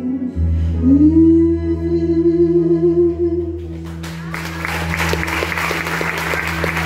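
A woman holds a long final sung note over a sustained low keyboard chord; about four seconds in, audience applause breaks out while the chord rings on.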